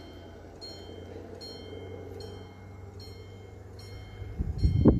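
Level crossing warning bell ringing, a single bright ding repeated about every 0.8 seconds, falling silent at the end. Near the end a loud low buffeting of wind on the microphone.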